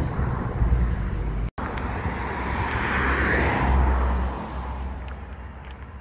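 Road traffic noise from a nearby road: a vehicle passing, swelling to a peak about three to four seconds in and then fading. The sound cuts out for an instant about one and a half seconds in.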